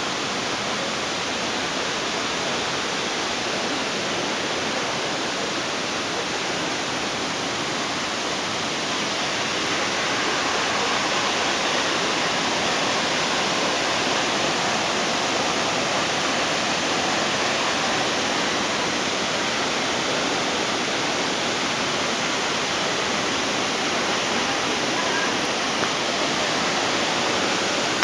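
Nachi Falls rushing steadily in heavy flow, a dense unbroken wash of falling water, growing slightly louder about ten seconds in.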